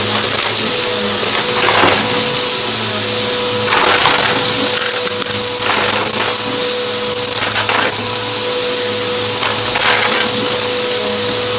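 Vacuum cleaner running steadily with a loud airflow hiss and a held whine, broken about every two seconds by short crackling surges as crunchy debris is sucked up.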